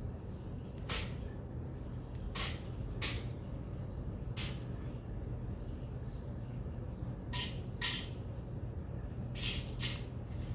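Small sharp clicks and taps, about eight scattered through the stretch, from beads and jewellery findings being handled at a work table, over a steady low hum.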